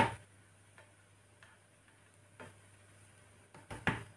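Sharp clicks and knocks of a frying pan and spatula being handled while a crêpe cooks: one loud click at the start, a few faint ticks, and a quick cluster of clicks near the end, over a faint low hum.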